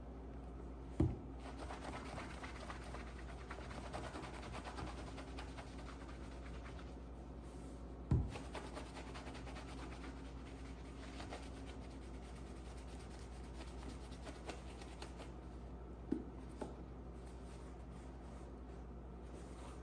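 Cloth rubbing briskly over a leather dress shoe's upper, a steady scratchy rubbing. Three short low thumps break in, about a second in, about eight seconds in and near the end.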